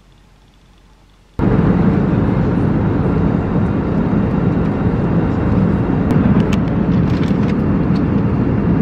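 Steady loud roar of an airliner cabin in flight, cutting in abruptly about a second and a half in, with a few faint clicks near the end.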